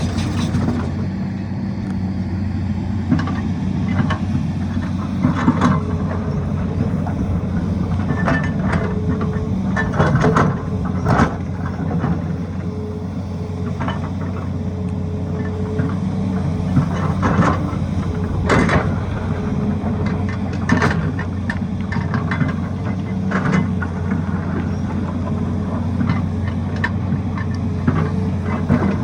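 Tata Hitachi excavator's diesel engine running steadily under load while digging into a rocky slope. Irregular sharp knocks and clatter run through it, with a faint whine that comes and goes.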